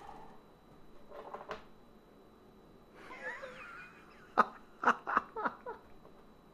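A man laughing in short breathy bursts, about four a second, after some faint breathing and vocal sounds.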